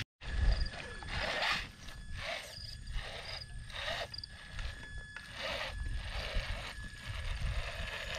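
Radio-controlled truck crawling over a pile of loose stones: a thin, steady whine from its motor and gears, with irregular bursts of grinding and clattering as the tires scrabble on the rocks.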